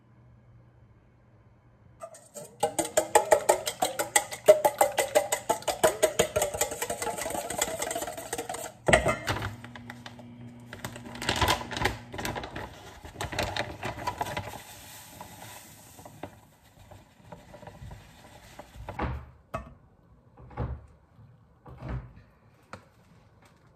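Wire balloon whisk beating eggs in a stainless steel bowl, rattling rapidly against the metal for several seconds. Then sugar is poured in from a plastic bag with rustling and clatter, and near the end a handheld flour sieve knocks a few times as flour is sifted into the bowl.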